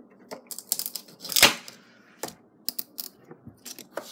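Frozen plastic water bottle clicking and crackling as it is gripped and worked on, the stiff plastic and the ice inside cracking in sharp separate snaps, with one louder, deeper crack about one and a half seconds in.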